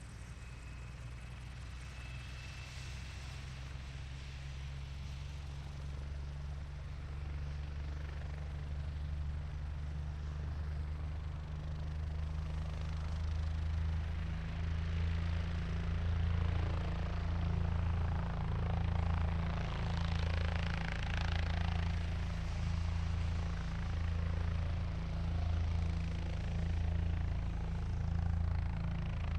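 Helicopter engine and rotor running, a steady low hum that grows gradually louder and, from about halfway in, swells and fades in a slow, regular beat.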